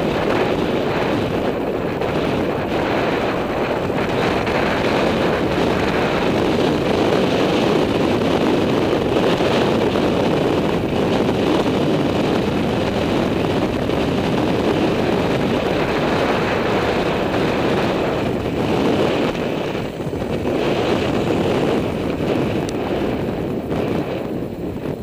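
Wind buffeting the microphone of a camera on a road bike riding fast down a mountain pass: a loud, steady rush of wind noise.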